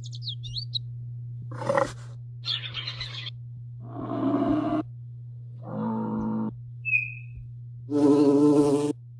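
A run of short animal sound samples played one after another, each a second or less: high warbling bird song at the start, then several grunt- and call-like sounds, and a loud pitched buzz-like sound near the end. A steady low hum lies under all of them.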